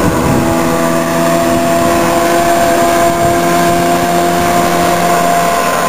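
Motorboat engine running at a steady pitch, an even drone with several overtones.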